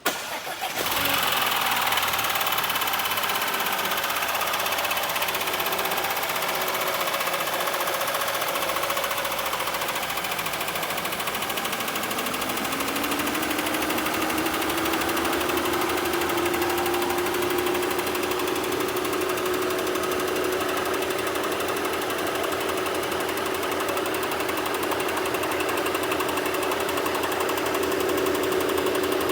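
Audi A4 engine, freshly rebuilt and installed, running with a dry, rhythmic knock, a sound that points to excess clearance somewhere or a component out of timing. A whine rises in pitch about twelve seconds in, then holds steady.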